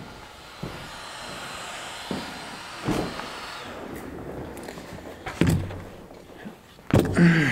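Handling noise from a DJI Mavic Pro folding drone and its remote controller being picked up and shaken: a few scattered knocks and rattles over a steady low hiss, with a short grunt near the end.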